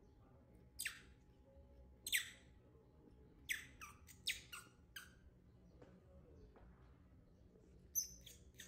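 Baby macaque giving about ten short, high-pitched squeaks: single ones early, a quick run of five in the middle, and three close together near the end.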